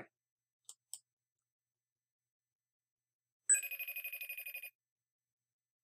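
An incoming video-call ringtone: one fast-trilling electronic ring lasting about a second, starting past the middle. Two faint clicks come near the start, otherwise near silence.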